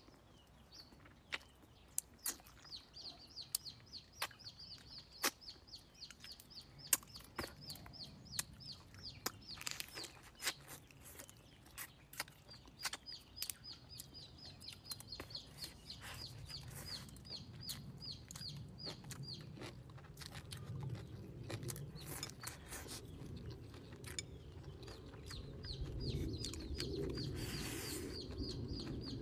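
Chewing and sharp mouth clicks from someone eating fried fish and greens. Behind them a bird gives long runs of high, rapid chirps, and a low murmur builds near the end.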